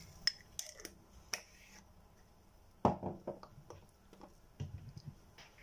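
Kitchen handling noises at the stove: scattered light clicks and knocks of utensils or containers, the loudest a knock about three seconds in.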